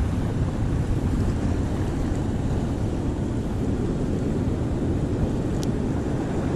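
Steady wind noise on the microphone over the wash of the sea at the shore, with a light click near the end.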